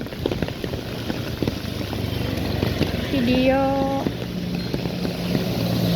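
Steady rain noise with scattered ticks, and a motor vehicle engine humming steadily from a little past the middle.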